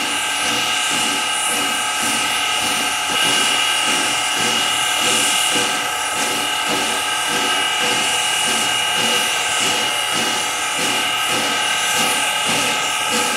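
Central Railroad of New Jersey #113 steam locomotive standing with steam up: a steady whine of several pitches and a low rhythmic thumping, about two to three beats a second, typical of the air pump and turbogenerator working on a stationary engine.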